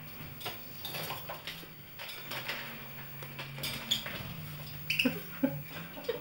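Grey parrot making a run of irregular sharp clicks, with a few short chirps about five seconds in.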